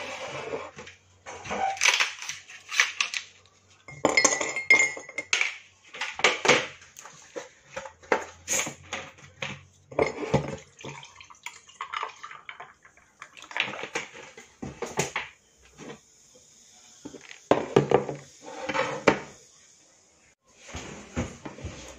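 Glassware and dishes knocking and clinking on a table in a string of separate clatters, as a glass mug and a plate are set down and a drink is poured from a plastic bottle into the mug.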